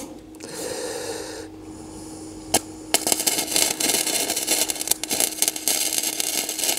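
Electric arc welding crackling and sputtering in two runs, a short one about a second in and a longer, denser one from about three seconds in, with a sharp click between them and a steady hum underneath.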